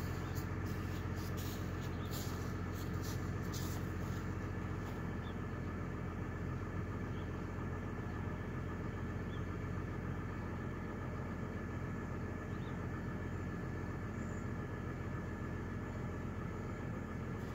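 2004 Chevrolet Trailblazer's exhaust at idle, heard close to the tailpipe: a steady, even low engine drone, with a few faint short clicks in the first few seconds.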